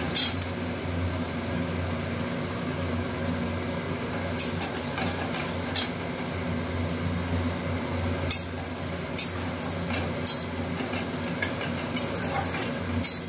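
Chopped onions frying in hot mustard oil in an aluminium kadai, a steady sizzle with a steel spatula stirring and scraping against the pan in sharp short knocks every second or so, several close together near the end.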